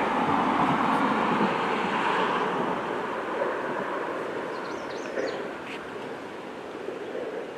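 Road noise of a vehicle passing on the highway below, a steady rush of tyres that fades away gradually. A few faint high chirps come about five seconds in.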